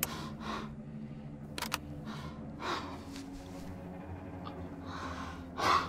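Sharp clicks from the dial of an old portable radio being turned, one at the start and a quick pair about a second and a half in, among a man's shaky breaths over a low steady hum.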